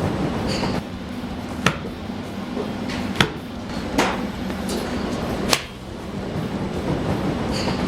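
Golf club striking balls: four sharp cracks, one to one and a half seconds apart, over a steady background hum.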